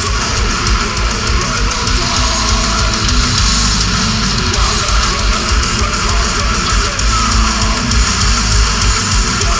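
Death metal band playing live at full volume: distorted electric guitars, bass and fast drumming with cymbals, heard from within the audience.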